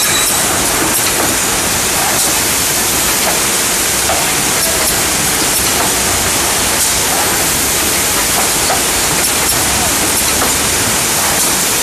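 YOUNGSUN ZX 30T drop-down wrap-around case packer running at about 25 cartons a minute: a steady, loud hiss of machine and air noise, with faint light clicks scattered through it.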